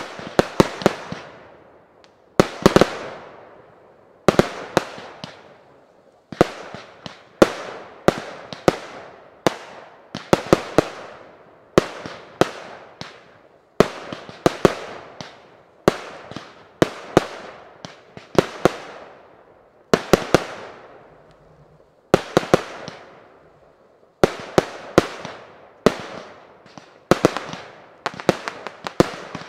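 Fireworks display: aerial shots from firework batteries bursting in rapid volleys, clusters of sharp bangs every second or two, each trailing off in a long rolling echo.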